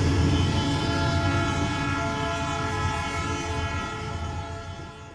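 Freight diesel locomotive passing close with its horn held in one steady chord over the deep engine rumble. It fades steadily as the train pulls away.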